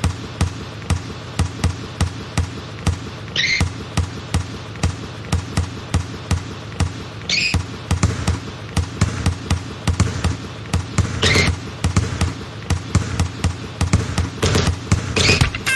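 A ball bouncing repeatedly, about two bounces a second, like a basketball being dribbled, with a short high squeak every few seconds.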